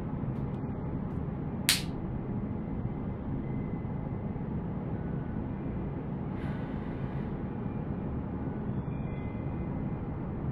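Low, steady ambient drone of a film background score with faint held notes. A single sharp click comes about two seconds in, and a brief rustle of paper script pages about six and a half seconds in.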